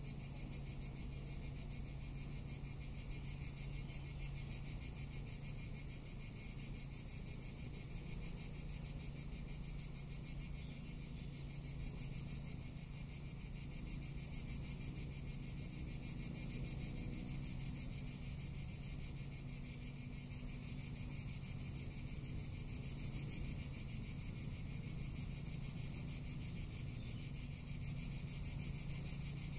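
Cicadas singing in a steady chorus, a continuous high, finely pulsing buzz, with a low steady hum underneath.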